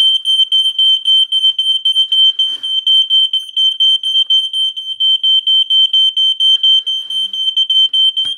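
A 17-year-old expired ionization smoke detector sounding its alarm: a loud, high-pitched tone pulsing rapidly and without a break. The alarm is set off by smoke from burning paper, which shows that the old detector still works.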